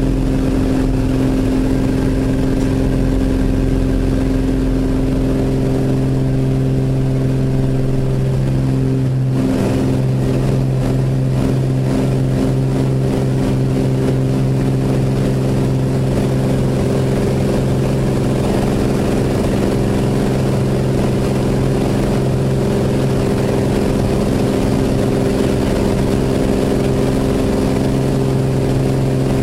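Cessna 206's six-cylinder piston engine and propeller droning steadily in flight, heard inside the cabin, with a brief shift in the engine note about eight to ten seconds in.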